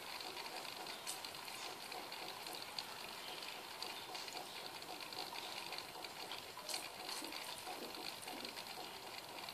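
Steady watery hiss of an aquarium filter running, with a couple of faint clicks.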